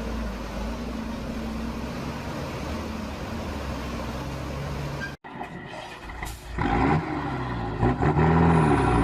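A heavy vehicle's engine running steadily. About five seconds in, the sound cuts to another engine, louder, revving up and down.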